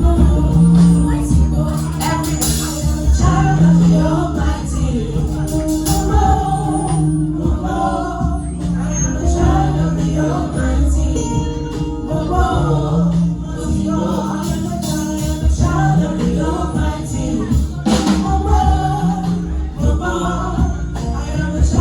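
Choir singing a gospel anthem over keyboard and drum accompaniment, with a tambourine shaken in time.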